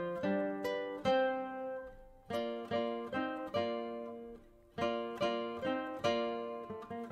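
Background music: a solo plucked-string early-music piece, with notes and chords plucked and left to ring and fade. It breaks off briefly twice, about two seconds in and again after four seconds.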